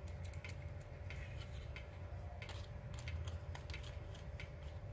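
Faint, irregular small clicks and ticks of a precision screwdriver turning a screw on an aluminium MK8 3D-printer extruder, with metal parts being handled, over a steady low hum.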